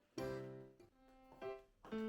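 Background music: a light keyboard or piano melody, a few separate notes that each ring and fade.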